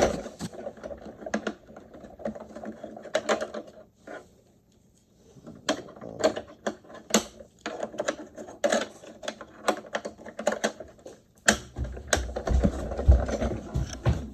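Hard plastic parts of a robotic pool vacuum being handled and fitted: irregular clicks, taps and knocks, with a brief pause about four seconds in and a low rumbling handling noise under the clicks near the end.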